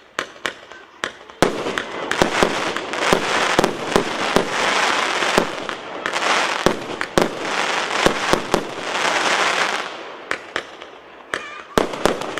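A consumer firework battery, the "Flying Dutchman" cake, firing: a rapid series of sharp bangs with dense crackling between about a second and a half and ten seconds in, thinning to separate bangs near the end.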